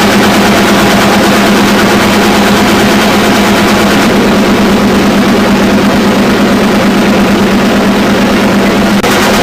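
Offset printing press running: a loud, steady mechanical hum and clatter with a constant drone underneath.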